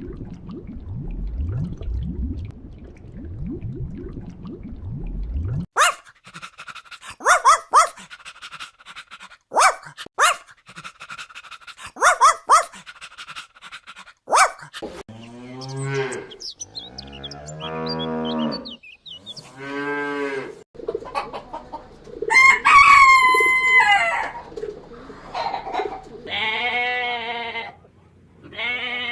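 A run of farm animal calls: a cat purring for the first few seconds, then short sharp clucks from fowl, a cow mooing several times, a rooster crowing, and sheep starting to bleat near the end.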